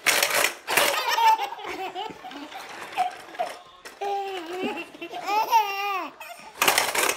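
Baby laughing in several short bouts of giggles and belly laughs with brief pauses between, and loud breathy bursts at the start and again near the end.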